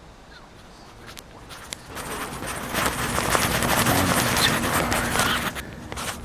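Pencil scratching on graph paper in quick strokes. It starts with a few light taps, then becomes a dense scratchy scribbling that grows louder and stops sharply near the end.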